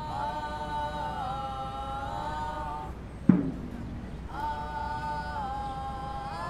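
A group of performers chanting together a cappella, several voices holding long notes in harmony and stepping between pitches. About halfway, between two held phrases, there is one sharp, loud thump with a short low ringing.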